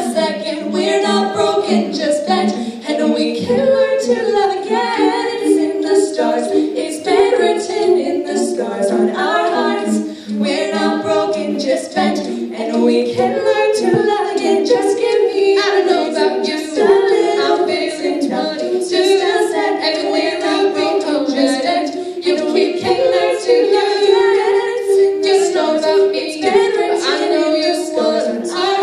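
A cappella vocal group singing in harmony, several voices together with no instruments.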